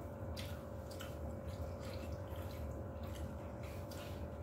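Quiet eating sounds at a table: scattered soft clicks and smacks, about half a dozen, over a steady room hum.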